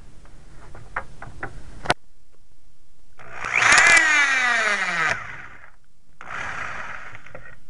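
Corded electric screw gun backing out screws: a sharp click about two seconds in, then the motor runs up to a loud whine that winds down with a falling pitch, and runs again near the end.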